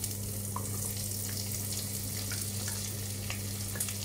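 Chopped onion sizzling as it is spooned into a hot pan of browned garlic, with a steady frying hiss and small clicks of a wooden spoon against the pan and bowl. A steady low hum runs underneath.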